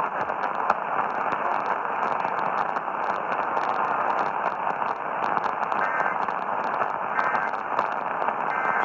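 Radio static: a steady hiss with constant crackling from a weakly received broadcast signal.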